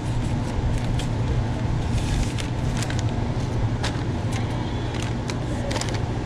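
Paper takeout bag and cardboard drink carrier being picked up and handled, with many short crinkles and clicks, over a steady low hum.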